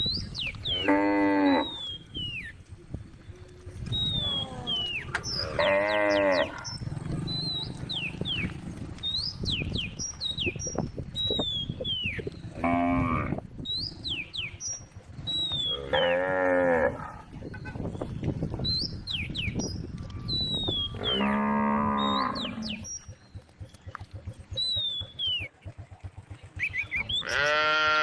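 Cows mooing on a road: about six separate moos a few seconds apart, each about a second long, the last beginning near the end. Small birds chirp between the moos.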